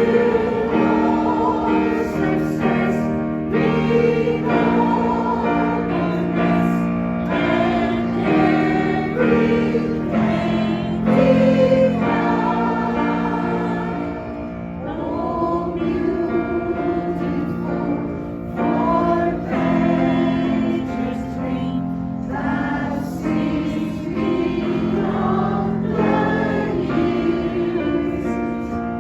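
A community choir singing together in harmony, with long held notes.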